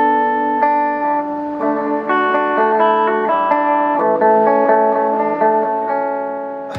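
Electric guitar played through a small custom-built Fender-style amp on its clean sound, with the tone switch on treble: a run of clean, sustained ringing notes and chords.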